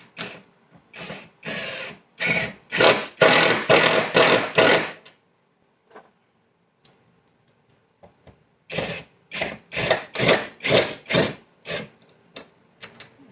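Power drill driving screws into wood in two runs of short trigger bursts. Each run ends in longer, louder bursts, with a gap of a few seconds between the runs.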